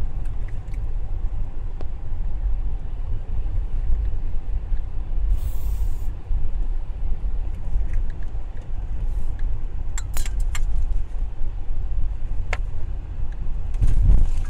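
Car driving, heard from inside the cabin: a steady low rumble of engine and tyres on the road. A few light clicks and rattles come about ten seconds in and again a little later.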